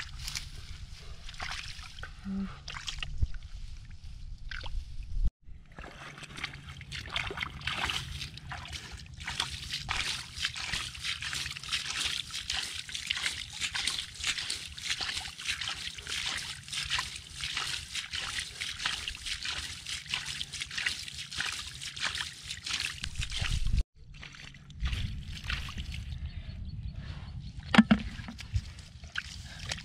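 Sloshing and squelching in a shallow muddy puddle as bare feet and hands stir the mud and water, groping for catfish.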